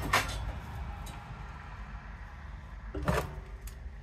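Metal clank about three seconds in, with a short ring after it, as a dishwasher motor's copper-wound stator is picked up and handled on a wooden workbench. A faint knock comes just after the start, over a low steady hum.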